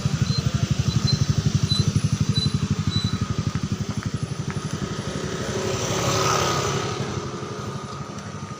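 Motorcycle engine running with a rapid, even low throb, as if heard while riding. About six seconds in, a rushing noise swells up and dies away.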